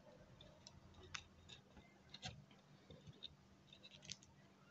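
Near silence, broken by a few faint clicks and scratches as fingers press a freshly glued wooden strip into place.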